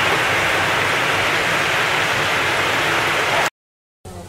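Heavy rain pouring onto a paved street, a dense steady hiss that cuts off abruptly about three and a half seconds in, followed by a brief silence.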